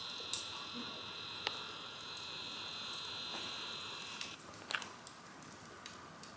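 Wood fire burning in a fireplace with colour-changing flame powder on the logs, giving a few sharp pops. A steady high-pitched hiss runs under it and stops about four seconds in.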